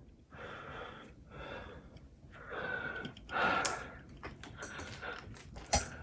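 Plastic pick scraping in the seam of an M4 Mac mini's bottom cover in a series of short strokes, with a few small clicks near the end as it is worked around the edge.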